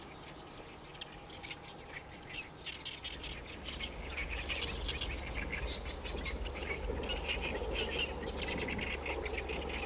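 Birds chirping outdoors in short, rapid calls that grow denser and louder about four seconds in. A low steady rumble starts underneath at about the same time.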